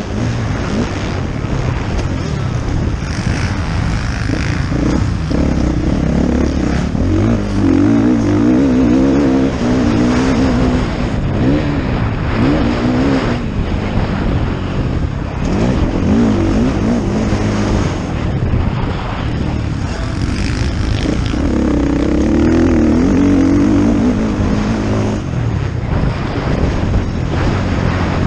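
Motocross dirt bike engine under hard riding, its pitch climbing and dropping again and again, with wind rushing over the helmet-mounted microphone.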